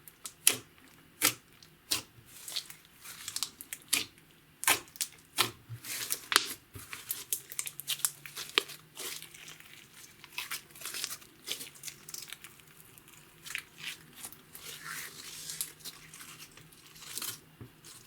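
Hands kneading and stretching clear slime mixed with makeup and glitter, making irregular sticky clicks and crackling pops.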